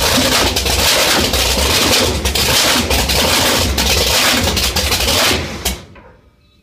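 Supercharged 540-cubic-inch big-block V8 running through open zoomie headers with a loud, uneven beat, on its first run since the boat was retired in 1998. It cuts out about five and a half seconds in and dies away to near silence.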